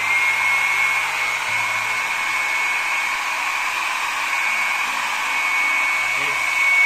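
A 1200-watt Myria hair dryer running on its first setting, blowing hot air with a steady rush of air and a thin high whine from its fan motor.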